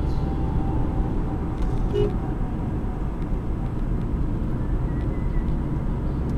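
Steady road and engine noise inside a moving car's cabin: the 2009 Kia Cee'd with its 1.6 CRDi diesel driving at road speed, tyres running on asphalt.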